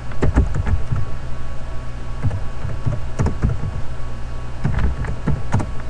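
Irregular knocks and clicks, about a dozen scattered unevenly, over a steady low hum.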